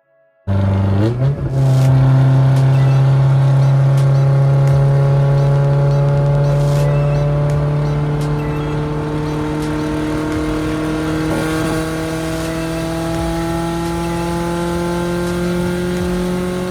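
A car engine pulling under load, its note stepping up once early on and then rising slowly and steadily as the car gathers speed.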